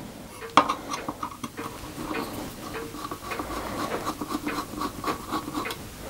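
A screwdriver is turning small self-tapping screws out of a wooden base plate. There is a sharp click about half a second in, then a run of small scratching and ticking sounds as the screws are worked loose.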